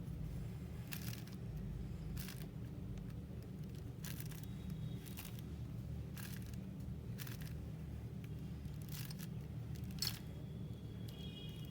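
Layers of a 5x5 Rubik's cube being turned, short plastic scraping clicks about once a second, over a steady low hum.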